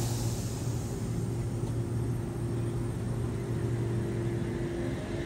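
Steady hum and low rumble of an electric suburban train at the station platform, with a low drone and a fainter higher tone holding level throughout.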